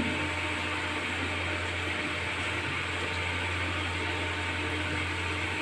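Turmeric and chilli frying in hot oil in an aluminium kadai over a gas burner: a steady sizzling hiss with a low, constant hum underneath.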